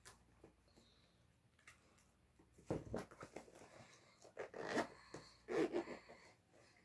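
Zipper of a hard-shell Nintendo Switch carrying case being pulled shut in a few short, scratchy runs, starting about three seconds in, mixed with handling of the case.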